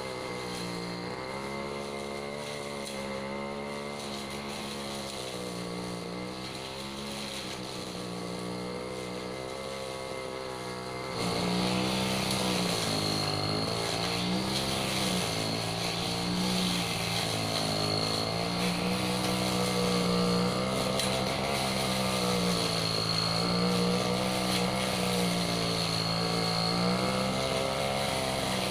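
Petrol brush cutter's small engine running at high revs while cutting, its pitch rising and falling as the load changes. It gets louder about eleven seconds in.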